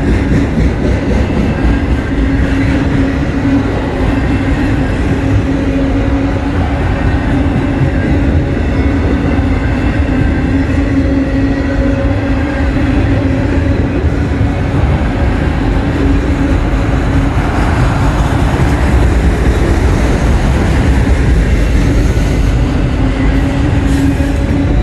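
Freight train of autorack cars rolling past: a loud, steady rumble of steel wheels on the rails, with a steady low tone running through it.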